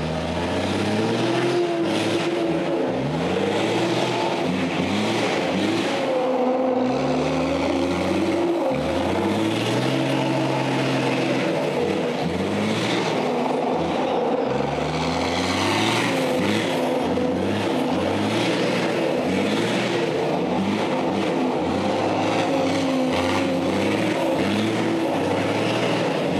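Kamaz Dakar rally truck's diesel engine revving hard and falling back over and over as the truck drifts in circles, its pitch rising and dropping every second or two.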